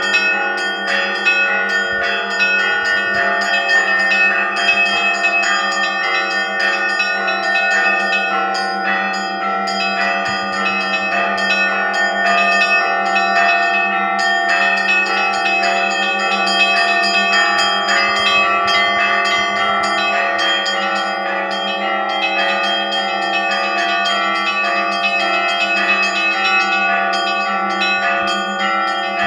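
Russian Orthodox church bells ringing together in a continuous peal: many bells struck in quick succession over a deep tone that holds steady beneath them.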